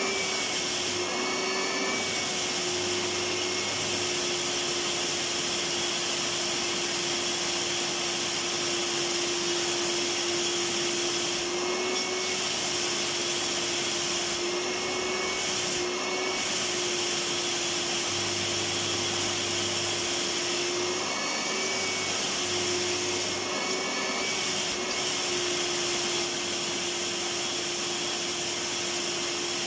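Electric vacuum cleaner running steadily: a continuous motor whir and hiss with a steady hum, its pitch dipping slightly for a moment now and then.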